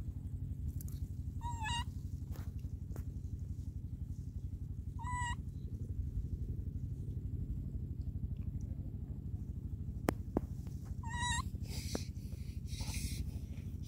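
A baby monkey giving three short, high squeaky calls, spaced several seconds apart, over a steady low rumble, with two sharp clicks about ten seconds in.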